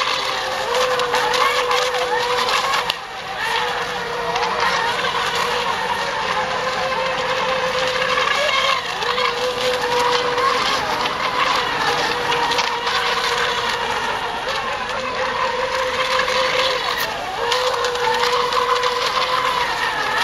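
Electric ECO Expert class RC racing boats running on the water: a steady, high-pitched motor whine that breaks off and slides up and down in pitch now and then.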